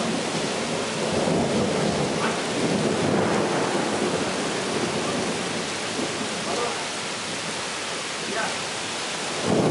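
Heavy rain pouring steadily in a thunderstorm, with thunder rumbling low underneath.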